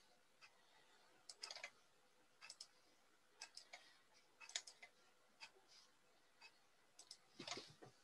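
Near silence: room tone with faint, irregularly spaced clicks and taps, roughly one or two a second, and a slightly longer rustle near the end.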